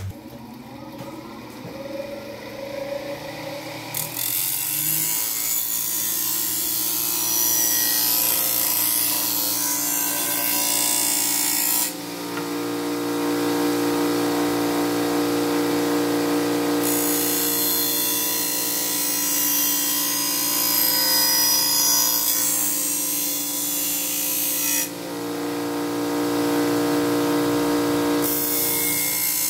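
Bench grinder fitted with MDF wheels running with a steady motor hum while a Gerber machete's edge is ground on the MDF grinding wheel, giving a loud hissing scrape. The hiss starts a few seconds in, drops out twice for a few seconds each, leaving only the motor hum, and comes back for each pass.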